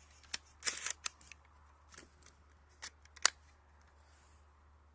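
Bolt of a JG BAR-10 spring-powered airsoft sniper rifle being worked between shots, cocking the spring for the next shot. A few metallic clicks and a short sliding rasp come about half a second in, and a sharper click comes near the middle.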